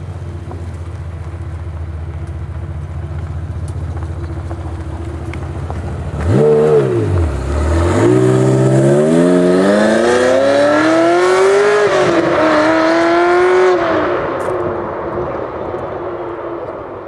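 Ferrari F355's V8 idling, then a quick blip of the throttle and a hard pull away, the engine note climbing steeply with one dip at a gearchange. The sound fades near the end as the car drives off.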